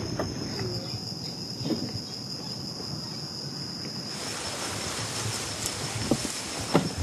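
Insects chirring in riverside vegetation: a steady high whine, joined about halfway through by a fuller high hiss of insect noise, with a few soft knocks.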